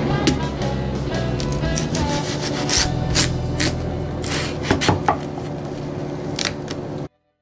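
A large knife cutting through a whole watermelon, with a series of sharp crunches and cracks from the rind, over background music with steady held notes.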